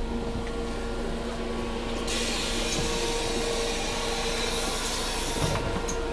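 MAN Lion's City 12C Efficient Hybrid bus humming steadily with two steady tones. About two seconds in, a hiss of compressed air starts, runs for about three and a half seconds and cuts off.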